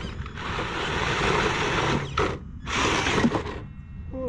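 Traxxas TRX-4 RC crawler's electric motor and gear drivetrain whirring in two bursts of throttle as the truck climbs wooden stairs, its rear differential unlocked.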